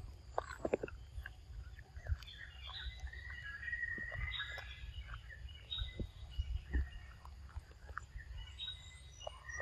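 Birds chirping and whistling, loudest in the middle and again near the end. In the first second, a few crisp crunches of a young macaque chewing peanuts. A steady low rumble runs underneath.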